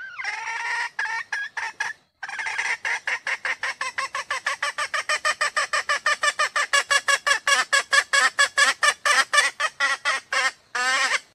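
Female red junglefowl hen calling: a longer falling note and a few quick clucks, a short break, then a long rapid run of clucks at about five a second that grows louder, ending on a longer note.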